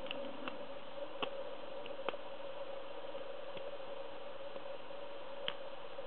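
Scattered light clicks and ticks of a lock pick and tension wrench working the pins of an ABUS pin-tumbler cylinder fitted with spool pins, about half a dozen over a few seconds with no steady rhythm.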